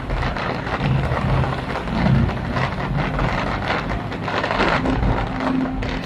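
Fireworks going off: a dense, continuous run of crackling pops and bangs.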